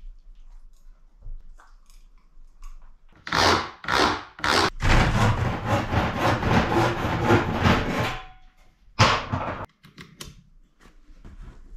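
Hand sawing: a few separate saw strokes, then a quicker run of strokes for about three seconds, and one last stroke near the end.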